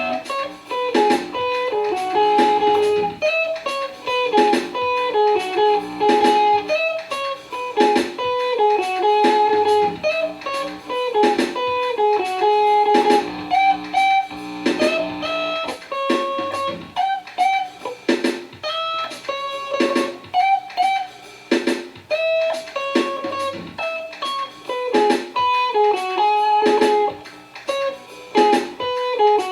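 Electric guitar playing a jazz-style single-note melody line over a steady percussive beat.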